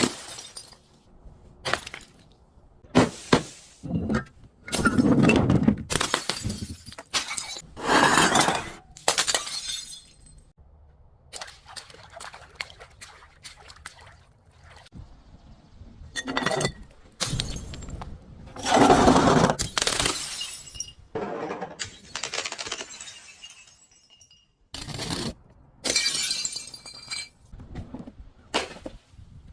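Glass bottles being broken: a series of separate shattering crashes with short gaps between, several of them loud and drawn out.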